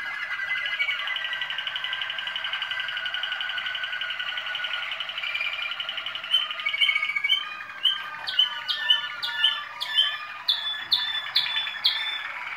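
Waterslager (Malinois) canary singing: a long, fast rolling trill, then, about halfway through, a run of sharp repeated falling notes, two or three a second.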